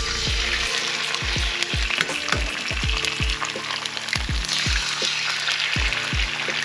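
Eggs sizzling and frying in hot bacon grease in a cast-iron skillet, a steady crackling hiss, over background music with a steady beat.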